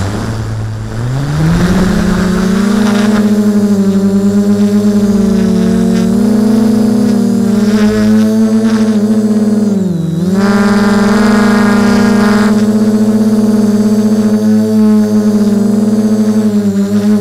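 A drone's electric motors and propellers spin up and lift off, the pitch rising over the first two seconds, then hum steadily in flight. The pitch dips briefly about ten seconds in and recovers.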